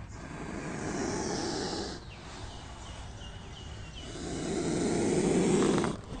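Cobra hissing: two long breathy hisses, each about two seconds, swelling and then cutting off sharply, the second louder than the first.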